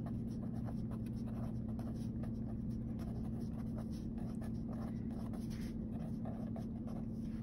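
A pen writing on graph-paper notebook paper: short, irregular scratching strokes as words are written by hand, over a steady low hum.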